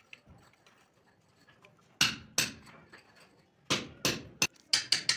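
Sharp knocks of metal fittings and tools against a ceramic wash basin while a tap is being fitted: two about two seconds in, then a quick run of about six near the end.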